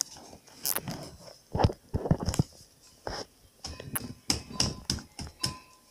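Soft-faced mallet tapping nails back into a wicker couch frame: a series of irregular knocks, the loudest about two seconds in.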